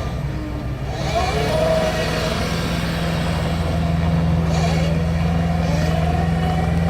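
2014 Cat 289D skid steer's diesel engine running steadily, with a higher whine over the engine note. It gets louder about a second in and again about halfway through.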